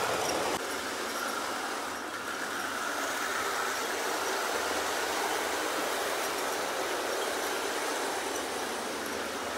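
Hornby OO-gauge model steam locomotive, an LMS Patriot Class, running round the track hauling five coaches: a steady running noise of the motor and wheels on the rails, a little quieter after about half a second.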